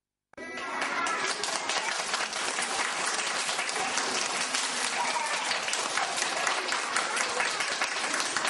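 An audience of young children clapping steadily, with children's voices mixed in. It begins abruptly just after the start.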